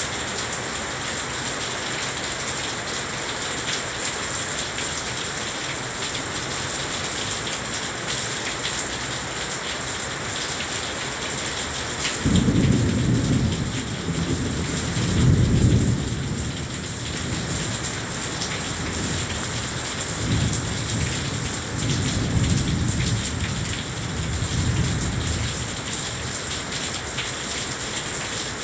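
Heavy rain falling steadily. About twelve seconds in, thunder breaks out suddenly and rolls low for over ten seconds, loudest a few seconds after it starts, then dies away under the rain.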